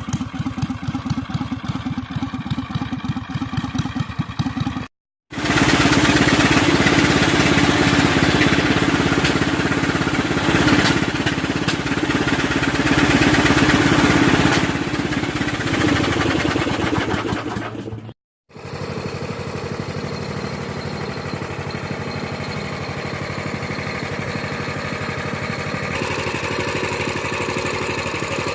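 Small engine of the home-built Predator Panther vehicle running in three short clips, cut apart by two brief silences: first an even, pulsing idle, then much louder running under way for about thirteen seconds, then a steadier run.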